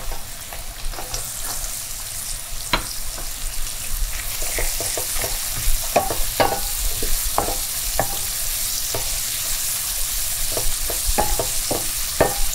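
Onions and raisins frying in oil in a skillet, with a steady sizzle, while a utensil stirs them, tapping and scraping the pan in irregular clicks that come more often in the second half.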